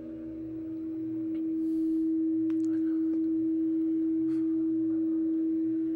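A single held pure tone, a sustained drone in a film score, swelling over the first two seconds and then holding steady, easing off slightly near the end. A few faint ticks sit over it.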